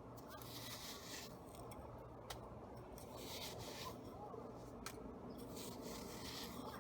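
Slime being worked by hand: faint rubbing and squishing that comes in three short spells, with a few light clicks between.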